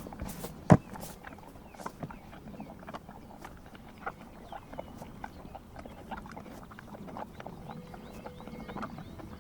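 Horses licking and working at a salt block: irregular small wet clicks and smacks, with one sharp knock about a second in that is the loudest sound. Faint short chirps come in near the end.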